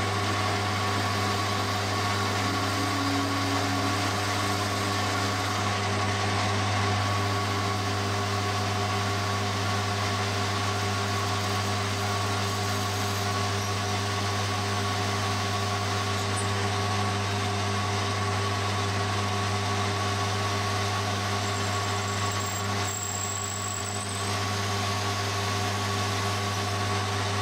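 Metal lathe running at a steady speed with the faceplate spinning while a large twist drill bores out the cast venturi of a model aircraft engine crankcase. It makes an even, steady hum with a constant whine above it.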